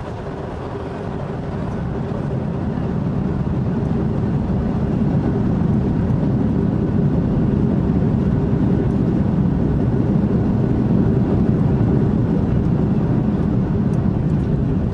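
Airbus A330-200 cabin noise on the ground after landing: a low rumble from the Rolls-Royce Trent 700 engines and the airframe, with a faint steady hum. It swells over the first few seconds and then holds steady.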